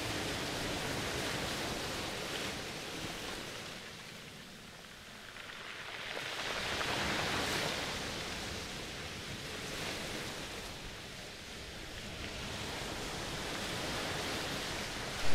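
A rushing, water-like noise that swells and eases slowly every few seconds.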